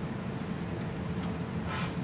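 Light handling noises from the wiring and power switch inside an opened small electronic welding machine's casing: a faint click, a small tick, and a short scraping rustle near the end, over a steady low background hum.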